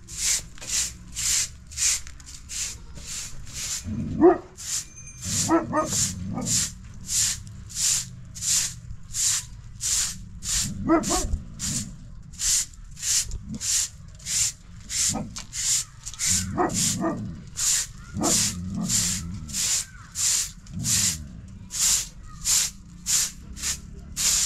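Steady, rhythmic rasping strokes, about two and a half a second, like a tool worked back and forth. A few short whining cries that bend in pitch sound over them now and then.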